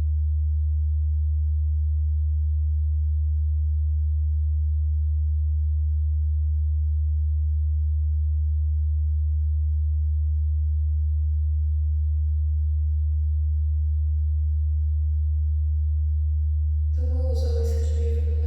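A loud, perfectly steady low electronic drone tone with a faint thin high whine above it. About seventeen seconds in, music with sustained layered tones comes in over it.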